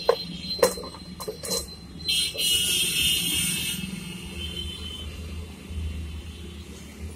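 Metal power-tool parts being handled on a workbench: a few short knocks and clicks in the first second and a half, then a hiss lasting about two seconds, over a steady low hum.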